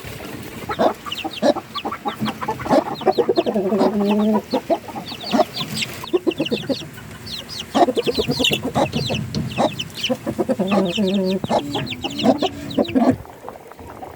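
Chickens clucking, with rapid runs of short clucks and two longer drawn-out calls, about four seconds in and again about eleven seconds in.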